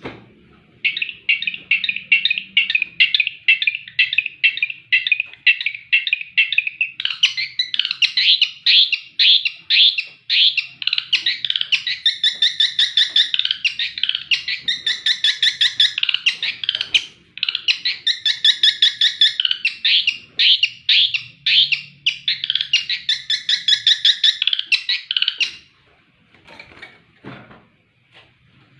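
Long-tailed shrike (cendet) singing a long, fast run of rapid repeated notes in changing phrases. The song stops near the end.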